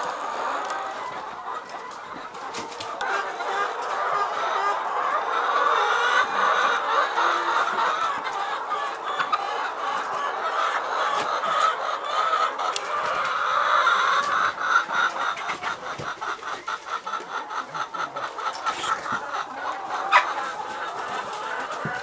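A flock of brown laying hens clucking and chattering continuously, with a quick, evenly pulsing run of clucks in the latter part and one sharp click near the end.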